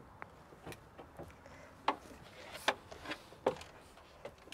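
Footsteps and knocks of someone climbing up the steps into a truck cab: a string of irregular knocks and thuds, the loudest a little under two seconds, about two and a half seconds and about three and a half seconds in.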